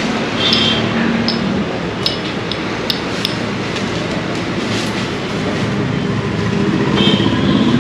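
Steady loud rumbling background noise, with a few light taps about two to three seconds in.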